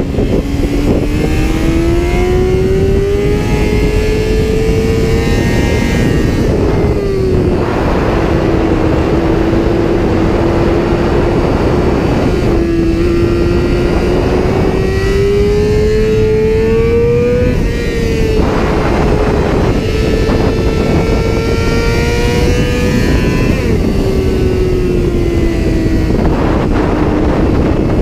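Yamaha R6's inline-four engine running hard at high revs on track, its pitch climbing steadily and then dropping sharply about three times with gear changes and throttle, over a constant rush of wind and road noise.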